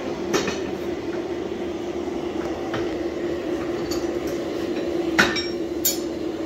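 Steady hum of blacksmith-shop machinery running, with a few sharp metal clinks of tongs and steel against a leg vise, the loudest about five seconds in.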